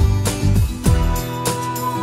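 Background music: a held melody note over a steady low beat.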